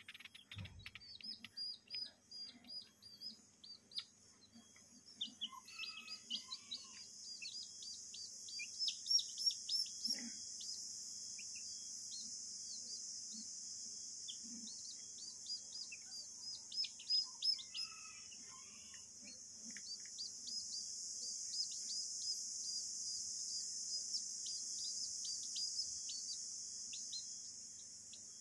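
A group of week-old bantam chicks peeping, with many short, high, downward-sliding peeps that overlap all the way through.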